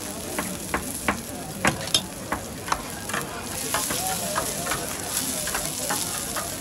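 Metal spatula scraping and clicking against a hot iron griddle while chopped chilies fry in oil: about a dozen sharp clicks in the first three seconds over steady sizzling, which gets louder from about four seconds in as the chilies are spread into the oil.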